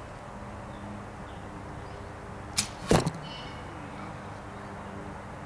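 A shot from a light-poundage hand-built bow with glass-and-walnut limbs: a sharp snap of the string at release, then about a third of a second later a louder thump as the arrow strikes the target. Faint bird chirps in the background.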